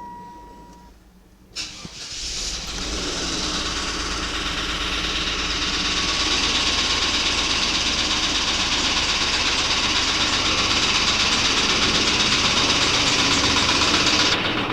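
A 1997 Chevrolet Blazer's engine starts about a second and a half in, after a steady beep stops, and settles into a steady run with a rapid, even knocking over it. This is the strange engine noise whose cause the owner does not know.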